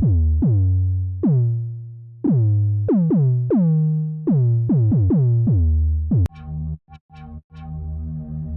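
Synthesized trap bass from Arturia's Trap Drop presets in Analog Lab: deep, aggressive bass notes played in a rhythm, about a dozen, each opening with a quick downward swoop in pitch. A little after six seconds in there is a click and a switch to a different bass sound that holds steadily, broken by short gaps and sharp ticks.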